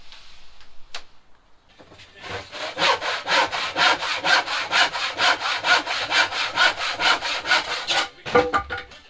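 Handsaw cutting through a timber batten: fast, even back-and-forth strokes, about five a second, starting about two seconds in and stopping near the end.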